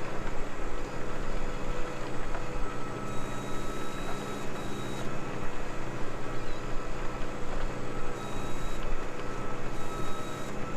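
Tractor engine running steadily under load while pulling a plough. A faint high whine comes and goes twice over the steady drone.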